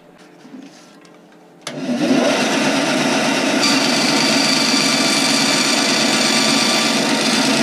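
Bandsaw switched on about two seconds in, its motor starting up with a brief rise in pitch and then running steadily and loudly while the blade cuts a thin wooden hull piece.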